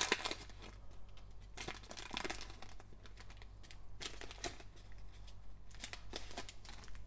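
Foil wrapper of a Panini basketball card pack crinkling and tearing in gloved hands, in short irregular bursts.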